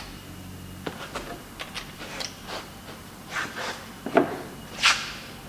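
Scattered clicks and knocks of hand tools on an engine as the tight head-stud nuts of a Subaru EJ257 are worked loose, with two sharper knocks about four and five seconds in.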